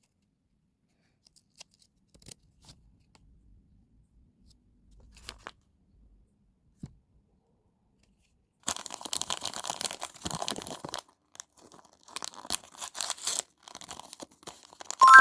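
Small plastic packaging being torn open and crinkled by hand, in bursts over the last several seconds, after a long stretch with only a few faint clicks of handling.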